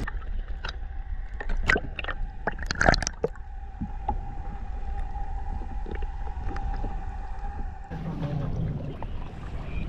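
Water sound heard through a camera dipped under the surface beside a boat, muffled. A few sharp knocks and splashes come in the first three seconds, then a steady hum over a low rumble. Near the end the camera comes up and the sloshing of water against the hull takes over.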